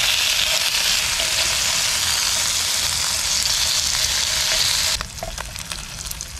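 Pork neck sizzling as it grills on a camping gas burner, a dense steady frying hiss. About five seconds in the sizzle drops away abruptly, leaving a few light clicks.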